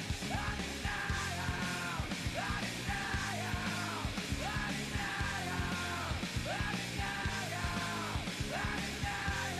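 Rock music with a driving drum beat and shouted vocals.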